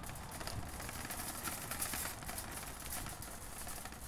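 Faint outdoor ambience: a low steady background with scattered small chirps and ticks.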